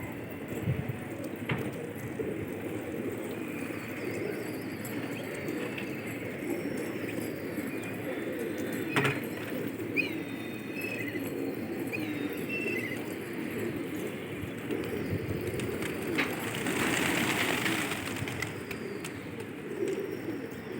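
Many domestic pigeons cooing together in a continuous low chorus, with a few short higher chirps and scattered clicks. A louder rushing burst comes about three-quarters of the way through.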